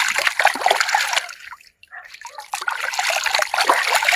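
Water splashing and trickling in quick, irregular strokes, broken by a short lull about halfway through.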